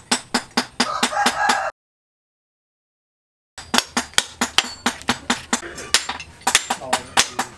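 Quick, evenly spaced knocks, about three or four a second, as a wooden knife handle with a steel ferrule is driven down onto the tang against a steel anvil. The knocking breaks off suddenly for about two seconds, then carries on at the same pace.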